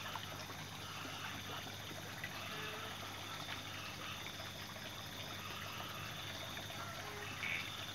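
Steady outdoor background noise: an even hiss with a low hum and a faint high-pitched steady tone, with no distinct event.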